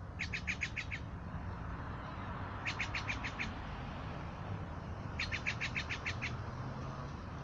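A bird, which the uploader takes for a Steller's jay, calling in three quick runs of harsh, evenly spaced notes. Each run has six to nine notes in under a second, with gaps of about one and a half to two seconds between runs.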